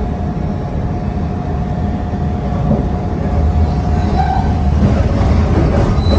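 A CTA Orange Line rapid-transit train running along the track: a steady rumble of wheels and motors that grows louder after about three and a half seconds, with a thin high tone coming in near the end.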